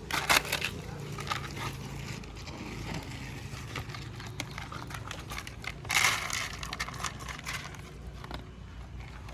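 A dog eating scraps of discarded food: irregular crackling, crunching and scraping, with two louder rustling bursts, one just after the start and one about six seconds in.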